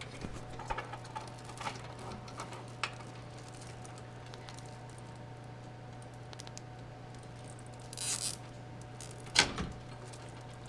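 Plastic zip ties being pulled tight around computer power-supply cables: light clicking and rustling of handled cables, a short ratcheting zip about eight seconds in and a sharp click soon after, over a steady low hum.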